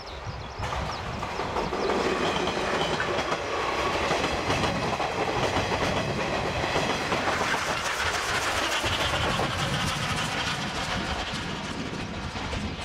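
Passenger train of coaches with a diesel locomotive passing close by: the rumble of wheels on the rails swells about a second in, holds, and eases away near the end.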